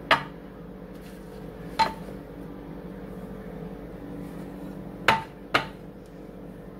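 Four sharp clinks of kitchenware: a ceramic mixing bowl and utensil knocking against a glass baking dish, each with a brief ring. The last two come close together.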